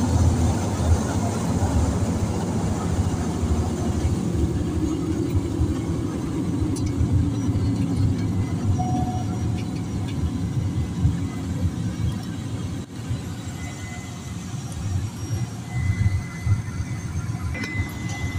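Small propeller plane's engine and propeller noise heard from inside the cabin, a steady low rumble that gradually eases as the plane rolls along the runway. A faint steady high tone comes in about halfway through.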